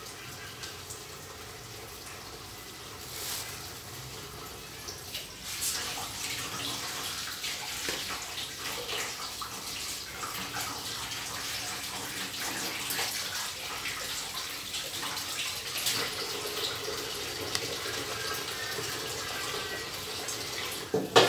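Kitchen tap running into a stainless steel sink as things are washed, with frequent small clinks and knocks of dishes and utensils, and one sharp knock near the end.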